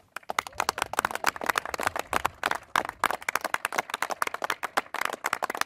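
Crowd applauding, many hands clapping, starting suddenly and keeping up steadily.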